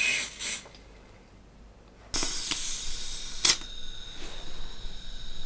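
Aerosol silicone spray hissing in two short bursts, applied to a leaking gas blowback airsoft magazine's valve to reseal its O-ring, a treatment that does not stop the leak. About two seconds in comes a louder hiss of about a second and a half, ending in a sharp click.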